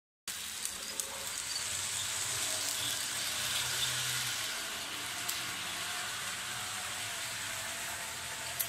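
Small electric motor and wheels of a BTTB TT-scale model locomotive running along the track: a steady hissing whir with a faint wavering whine and a few short clicks.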